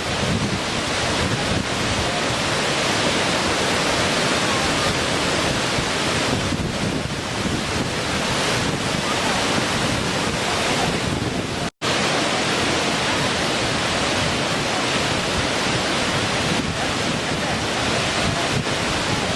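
Small waterfall splashing and rushing in a steady, dense stream of water noise, broken by a split-second dropout about twelve seconds in.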